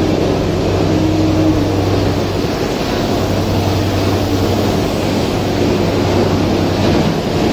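Steady drone of machinery running in a factory hall: a constant low hum under broad rushing noise.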